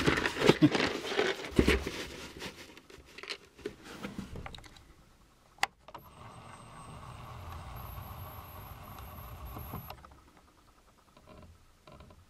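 Plastic model-kit parts on their sprues clattering and sliding inside a cardboard box as it is tipped on its side: a loud burst of rattling that thins out and dies away over about four seconds. A single sharp click follows, then a steady faint hum for about four seconds.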